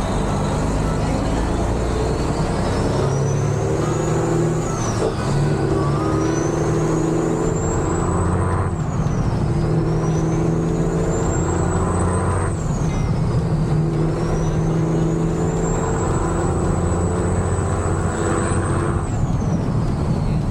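Freightliner Classic XL's Detroit Diesel engine pulling through the gears. A high turbo whistle climbs with each gear and drops sharply at each of four upshifts, about every four seconds, while the engine note steps down with each shift.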